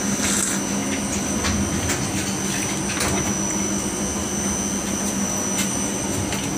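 Steady rumble and hum inside an air-conditioned coach of an Indian express passenger train, with a faint steady high tone and a few light clicks.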